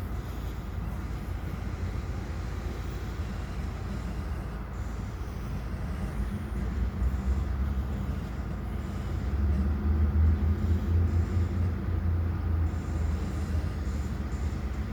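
Diesel-electric switcher locomotive running, a low engine rumble that swells about halfway through, is loudest a few seconds later, then eases a little. No horn is sounded.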